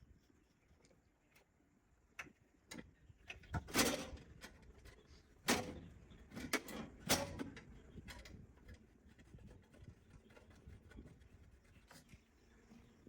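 Scattered light clicks and knocks, with a few louder clunks about four seconds in and again between five and seven seconds in.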